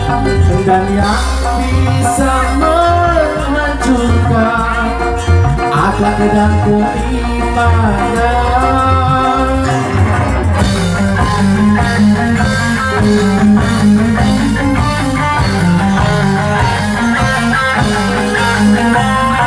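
Live band music played loud through a large PA sound system, with a melody line over heavy bass and drums. About halfway through it changes to electric guitar playing over bass and drums.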